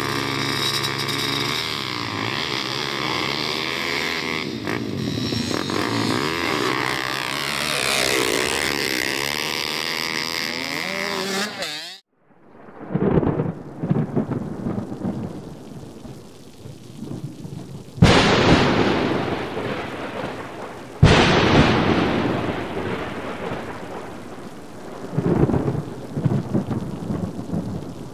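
Two pit bike engines running and revving at a start line, their pitch rising and falling, for about twelve seconds. The sound then cuts off and gives way to a thunderstorm sound effect: rain with rumbling thunder and two sudden, loud thunder cracks about three seconds apart.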